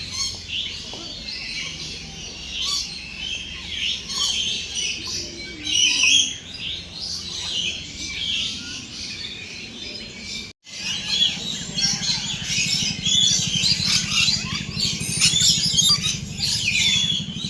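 Many birds chirping and twittering at once, with dense overlapping calls. After a brief break about ten seconds in, the chirping is louder, with a low steady hum underneath.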